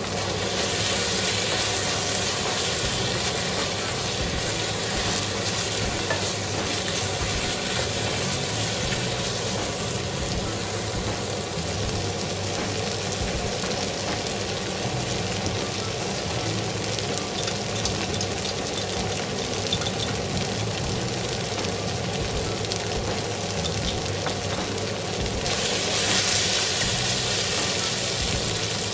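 Sliced shiitake mushrooms and onions sizzling as they fry in a stainless steel wok. The sizzle grows louder for a couple of seconds near the end as they are stirred with a wooden spatula.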